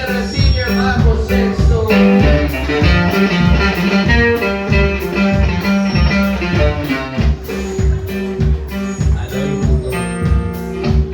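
A live regional Mexican band in the Tierra Caliente style playing, with a steady beat, strong bass and sustained melodic instrument lines.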